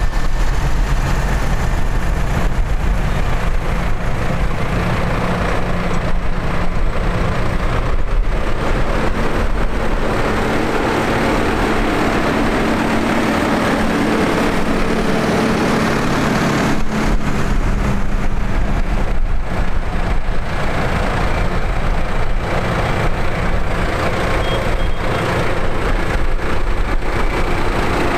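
Diesel engines of Valtra tractors running as they drive slowly past at close range in a line, one after another. The engine note grows louder from about a third of the way in as one tractor draws alongside, then drops away suddenly about halfway through.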